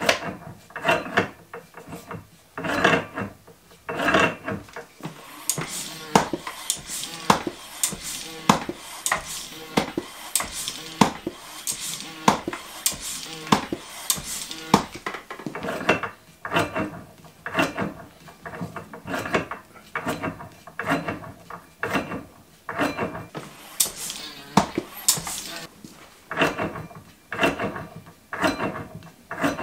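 Rhombic-drive Stirling engine running rough, with an irregular rapid metallic clatter and knocking from its drive and gears, the sign of an engine still badly out of balance.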